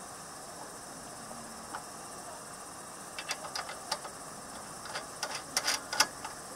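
Fuel filler cap being screwed back onto a Coleman NorthStar lantern's tank, a run of sharp, irregular clicks and small knocks from about three seconds in. Crickets chirr steadily in the background.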